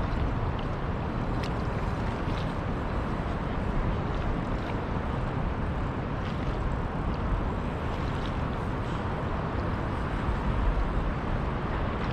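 Steady rushing of fast river water, an even noise with no tone in it, with a few faint clicks scattered through it.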